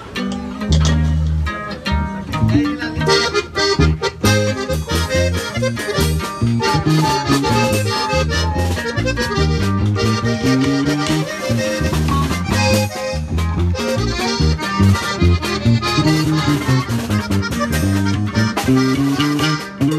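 Live accordion and acoustic guitar playing an instrumental passage together. The accordion runs a quick melody while the strummed guitar keeps the rhythm and bass notes.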